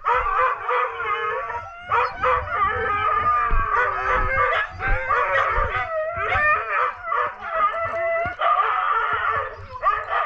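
Several huskies howling, yipping and whining without a break, overlapping one another: the excited noise of sled dogs eager to start running.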